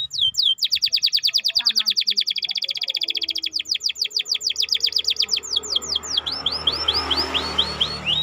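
Domestic canary singing: a very fast trill of repeated high, downward-sweeping chirps, then a slower run of down-slurred notes. A rushing noise rises underneath in the second half.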